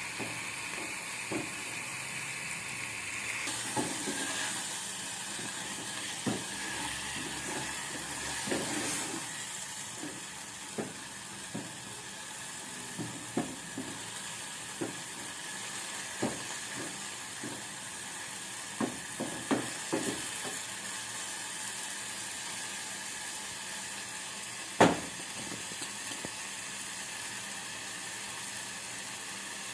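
Chopped amaranth greens sizzling as they sauté in oil with onion and tomato, with a spoon knocking and scraping against the pan every few seconds. One louder knock about 25 seconds in.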